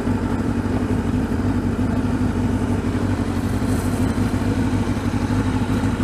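Kawasaki Concours 1000's inline-four engine running steadily at low revs as the motorcycle rolls slowly along a gravel track.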